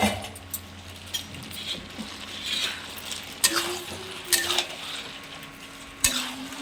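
A metal spoon clinking against a cooking pot and dishes, a few separate light clinks spread out.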